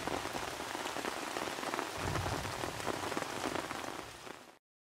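Fish soup boiling in a clay pot: a dense, even patter of tiny bubbling pops. It fades and cuts off just before the end.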